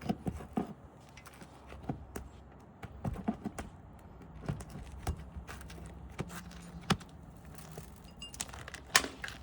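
Irregular light knocks, taps and clicks of hands and tools working on asphalt roof shingles, with one sharper knock near the end.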